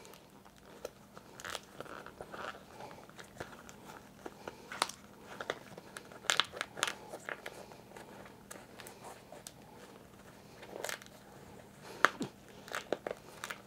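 Faint handling noise from a plastic helmet ear cup being pried apart by hand and its foam pulled out: scattered clicks and crackles with light rubbing, the sharpest clicks about five, six and twelve seconds in.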